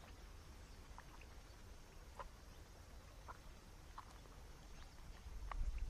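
Faint outdoor ambience: short high chirps, one every second or so, over a low rumble that grows louder near the end.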